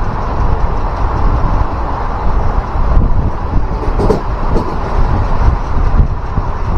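Passenger train running at speed, heard from an open coach doorway: a steady rumble of the wheels on the track, with a couple of sharp clicks about four seconds in.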